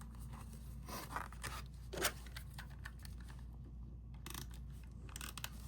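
Paper and tape being handled while a pop-up card is assembled: a few brief scratchy tearing and rustling strokes, the sharpest about two seconds in.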